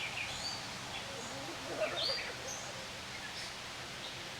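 Several birds calling with short chirps and quick pitch glides over a steady background hiss; the loudest call comes about two seconds in.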